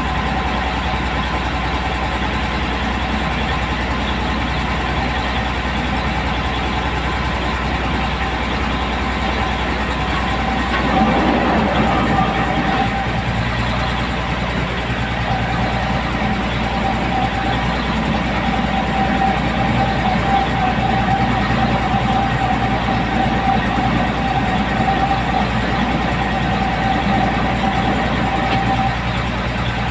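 Truck engine running steadily. About eleven seconds in it gets a little louder and a steady whine joins it, holding until near the end.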